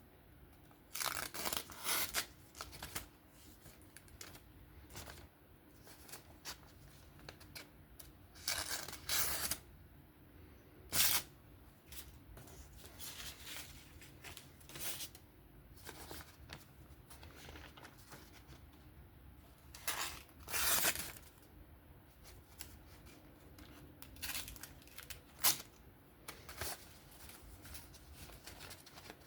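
Knife blade slicing into a hanging single-ply paper towel in a sharpness test: short bursts of paper rustling and tearing every few seconds, strongest about a second in and again around twenty seconds in.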